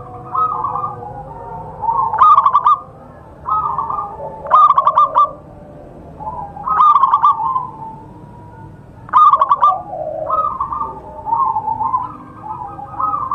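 Zebra doves (perkutut) cooing: short phrases of rapid, stuttering coos repeat about every two seconds, loud phrases alternating with softer ones.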